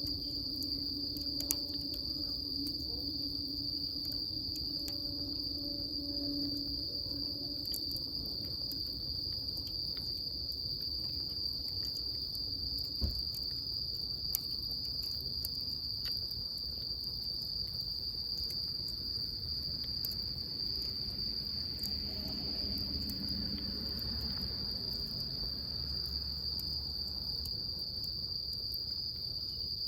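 Continuous high-pitched insect trill, cricket-like, held steady throughout, with faint scattered crackle-like clicks.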